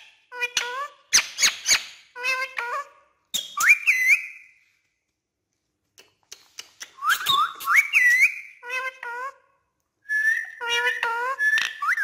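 Ringneck parakeet talking and whistling: short chattering, speech-like phrases mixed with rising whistles, a pause of about two seconds midway, then more chatter and a held whistle near the end.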